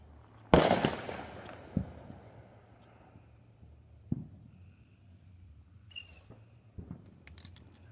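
Fireworks going off: one loud boom about half a second in that rolls away slowly over a second or more, then a few single, sharper bangs spread through the rest.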